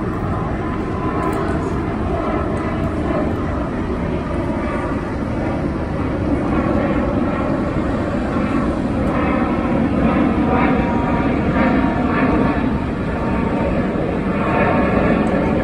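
Airbus A320neo airliner climbing out after takeoff: a steady, broad jet-engine rumble that swells a little about six seconds in.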